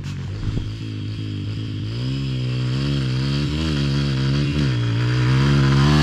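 Yamaha WR250F four-stroke single-cylinder dirt bike engine running under a blipping throttle. Its pitch rises and falls in short waves, and it grows gradually louder, with a couple of knocks in the first second.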